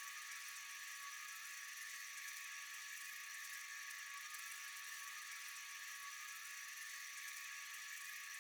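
Faint, steady chorus of night insects: an even high-pitched buzz with a few constant tones, unbroken throughout.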